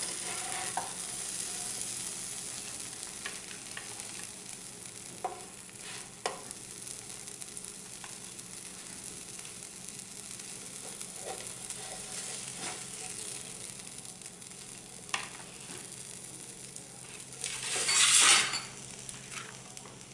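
Bread pizzas sizzling in butter on a hot non-stick tava, a steady frying hiss. A few sharp clicks of a metal spatula against the pan as the pizzas are lifted off, and a louder rush of noise near the end.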